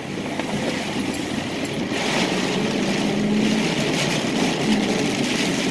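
Dodge Durango pulling away in heavy rain, heard from inside the cab: a steady engine hum under the hiss of tyres on the wet road and rain on the windshield. The hiss grows louder about two seconds in.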